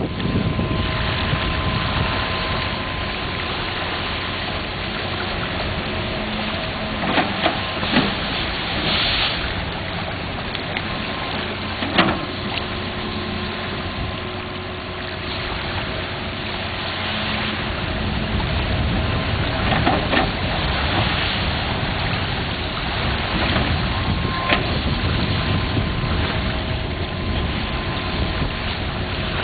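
Steady rushing of lake water pouring out through the channel opened in the gravel bar, mixed with wind on the microphone. A faint steady hum runs underneath, and a few sharp knocks stand out, the loudest about twelve seconds in.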